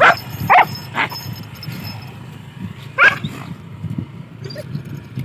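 Hunting dogs barking: three short, sharp barks in the first second, then one more about three seconds in.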